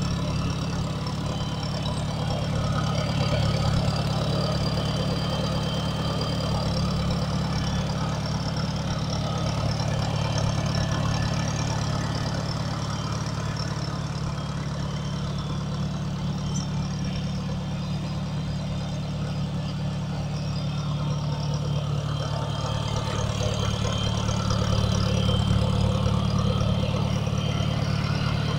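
McCormick International Farmall FU235's petrol engine idling steadily, running evenly on a newly renewed distributor cap, rotor, spark plugs and plug leads.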